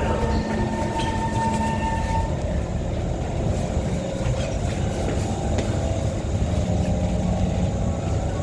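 MRT train running on the rails with a steady rumble. A high steady whine stops about two seconds in, over a lower hum.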